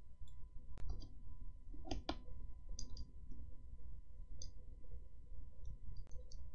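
Scattered light clicks and taps of a pen stylus on a tablet as numbers are handwritten, over a low steady hum.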